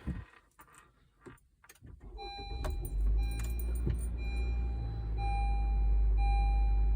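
A push-button start attempt on a 2020 Honda CR-V. After a few faint clicks, a low engine rumble builds about two seconds in and then runs steadily. A dashboard warning chime beeps repeatedly over it.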